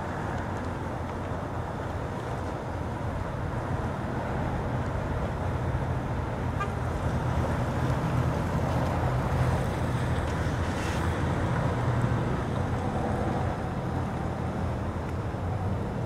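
Steady low rumble and hiss of outdoor background noise, swelling slightly in the middle.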